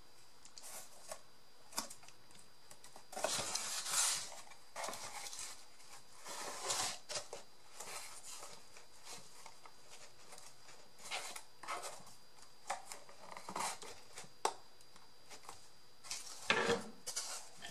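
Cardboard pieces being handled and fitted together by hand: irregular rustling and scraping, with a few light taps in between.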